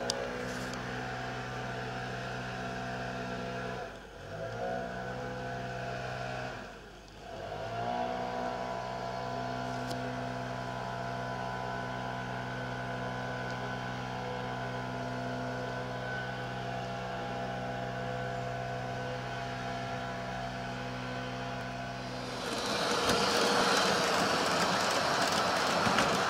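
Model train running: a steady mechanical hum made of several pitches. It twice drops away briefly and glides back up in pitch. Near the end a louder rushing noise takes over.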